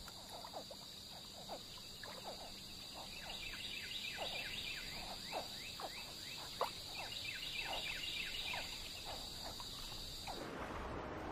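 Swamp ambience: a steady high-pitched insect drone with a stream of short, falling chirps from wildlife. Near the end the drone stops and a steady rushing noise takes over.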